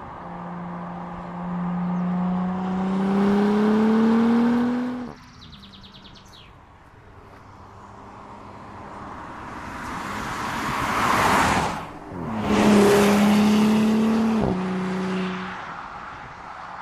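Audi SQ5's V6 engine accelerating, its note rising for about five seconds before cutting off sharply. The SUV then approaches with swelling engine and tyre noise and passes by. A few seconds of steady engine note follow and stop abruptly.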